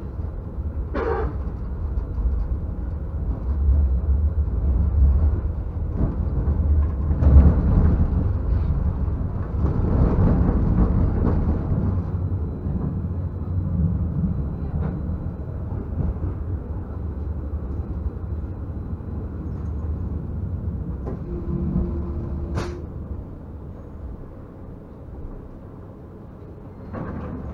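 Stadler Variobahn low-floor tram running along the track: a steady low rumble that swells for several seconds and then eases off. Near the three-quarter mark there is a short steady tone, then a sharp click.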